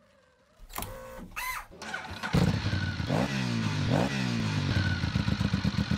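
Motorbike sound: a few brief whooshes, then from a little over two seconds in a loud, low, rapidly pulsing drone whose pitch sweeps down and back up twice.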